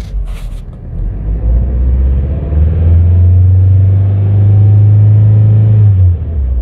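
Audi A1 petrol engine, heard from inside the car, revved up and held steady at about 3,000 rpm, then let fall back near the end. It runs smoothly, not lumpy: the misfire seems cured with the original spark plugs refitted.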